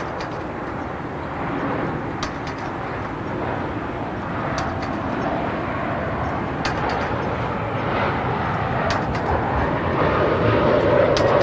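Jet airliner engines, a steady rumble that grows louder toward the end as the aircraft comes closer, with a few faint clicks.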